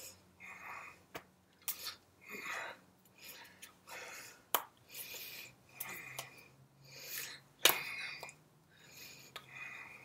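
Hands brushing, rubbing and clapping against each other while signing in sign language: irregular soft rustles with a few sharp taps, the loudest one near the end, mixed with puffs of breath.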